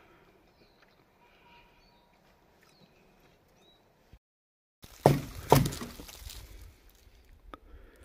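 Faint outdoor background. Then, after a short dropout, two loud sharp knocks about half a second apart, followed by a few seconds of scraping and handling noise.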